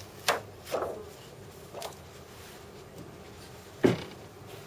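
Handling noises as a paper print is taken out of an exposure box: a sharp knock about a third of a second in, lighter knocks and rubs around one and two seconds, and a heavier knock near four seconds.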